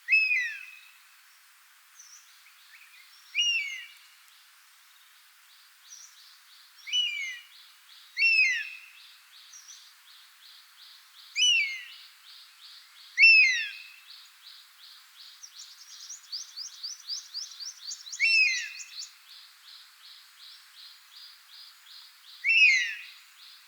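Common buzzard giving short, sharp down-slurred mewing calls, eight in all, a few seconds apart. Under them runs a steady rapid high-pitched pulsing that swells into a louder trill for a few seconds past the middle.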